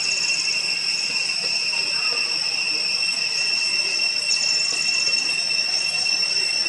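Steady, high-pitched droning of insects, with a short rapid chirping trill at the start and again about four seconds in.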